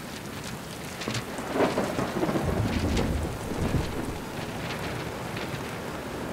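Steady rain falling, with a low roll of thunder that builds about a second and a half in and dies away by about four seconds.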